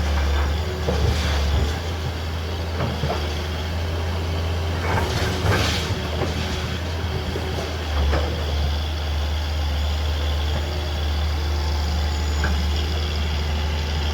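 Heavy diesel engine of a truck or excavator running steadily with a deep drone, with a brief hiss about five seconds in.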